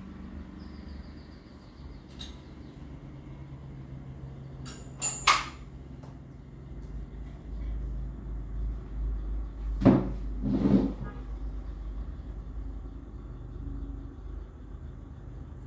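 Things being handled and moved off-camera: a sharp click about five seconds in, then two knocks about ten and eleven seconds in, over a low steady hum.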